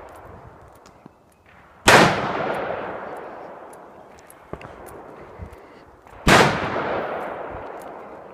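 Two loud gunshots about four and a half seconds apart, each followed by a long rolling echo that dies away over a couple of seconds, with a fainter, more distant shot between them.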